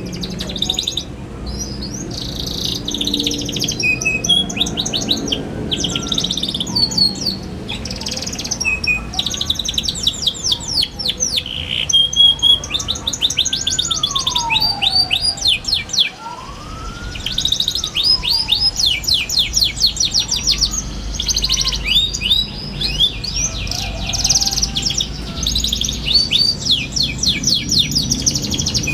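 Young canary singing a fast chattering "ngeriwik" song: rapid trills of quick down-sweeping notes in runs of a second or two, with short breaks between phrases.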